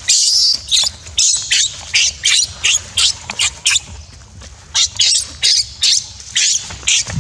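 Baby macaque screaming in a fast run of short, high-pitched shrieks, about two or three a second, with a brief break around the middle. These are distress screams from an infant being grabbed and bitten by its mother.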